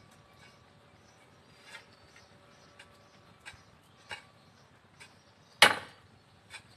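Pickaxe striking into garden soil: faint scattered ticks, then one loud heavy blow a little before the end.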